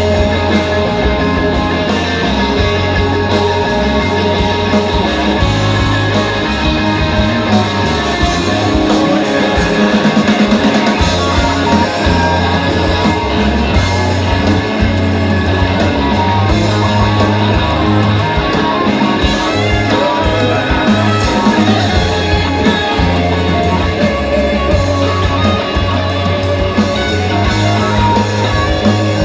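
Rock band playing, led by guitars over a steady bass line and drums.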